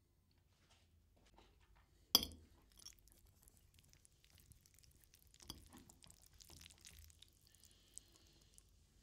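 Kitchen handling sounds, tableware and utensils clinking: one sharp clink about two seconds in, then quieter knocks, scraping and light clatter, and a small tick near the end.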